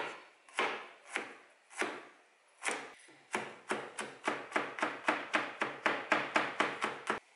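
Handmade Serbian chef's knife chopping garlic cloves on a wooden cutting board: a few spaced chops, then from about three seconds in a quicker, even run of about three chops a second that stops abruptly near the end.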